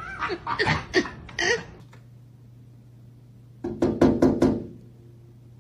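Sandhill crane pecking at a glass door, a quick run of about five or six sharp knocks on the glass. Before it, a few short, pitched animal sounds.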